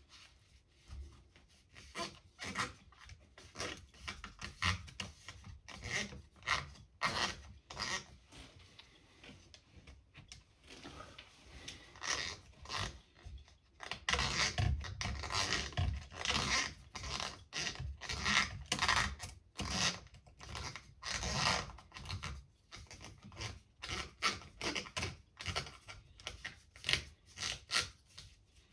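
Paper-towel-wrapped wooden stick scrubbed back and forth inside an Air Arms TX200 spring-air rifle's compression cylinder to clean it: a long run of quick scraping, rubbing strokes, busiest about halfway through.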